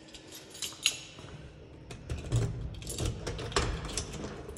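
Keys jangling and the clicks of a lock and handle as the door of a storage unit is unlocked and opened, with one sharp click a little under a second in.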